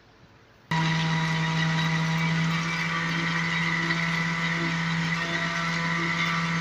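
Electric mixer grinder (mixie) starting up under a second in and running at a steady pitch, blending a banana-and-almond milkshake in its steel jar.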